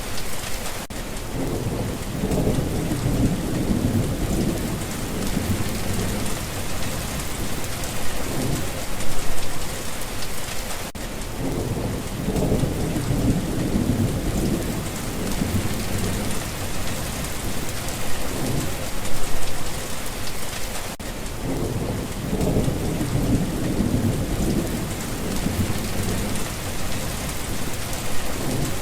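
Steady heavy rain with low rolls of thunder swelling and fading every few seconds; the same ten-second stretch of storm repeats, looped.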